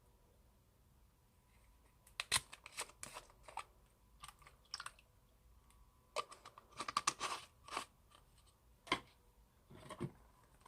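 Old slime being handled, giving irregular clusters of sharp crackling clicks and crunches, starting about two seconds in.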